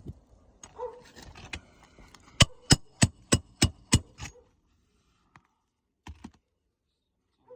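A hammer striking metal six times in quick succession, about three blows a second, each blow ringing, like nails being driven through a roof snake during a shingle repair. Softer knocks and rustling come before the blows.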